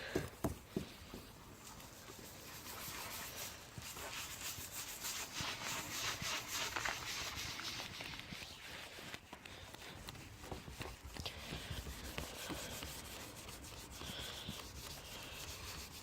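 Toothpaste being rubbed in circular motions onto the foggy plastic headlight lens of a 2006 Toyota Yaris: a quick, steady rubbing, used as a mild abrasive to polish the haze off. There are a few sharp knocks near the start.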